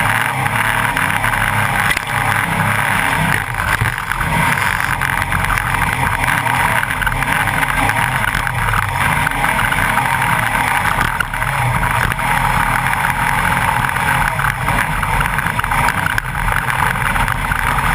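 Class 9 desert race buggy at speed, its engine running hard and steady under loud, noisy wind and road noise, with many small knocks and rattles.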